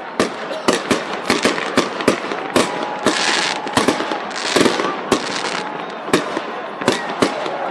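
Aerial fireworks going off overhead: a rapid, irregular string of sharp bangs from shells bursting, with two short spells of hissing crackle near the middle.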